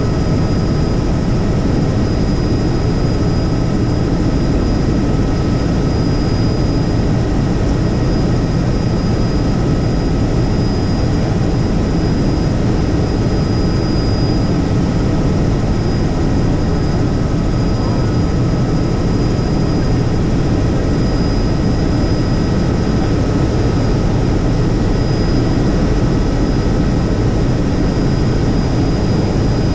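Helicopter in flight: steady, unbroken rotor and engine noise, heavy in the low end, with a faint constant high whine running through it.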